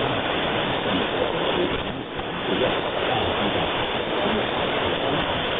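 Weak shortwave AM broadcast from Voice of Strait on 4940 kHz in the 62-metre band, heard through a software-defined receiver: steady hiss and static, with a faint voice barely showing through.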